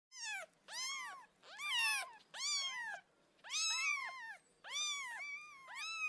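Domestic cat meowing repeatedly: about ten short meows in quick succession, each rising and then falling in pitch.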